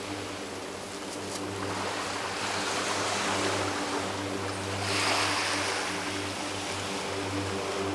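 Beach ambience: a steady wash of small waves and wind, with a swell of hiss about five seconds in. Underneath runs a low, steady engine-like hum.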